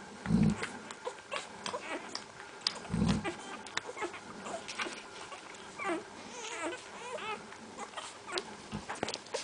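Central Asian Shepherd puppies whimpering and squeaking in many short, high calls, with clicks of movement. Two dull low thumps, the loudest sounds, come about half a second in and about three seconds in.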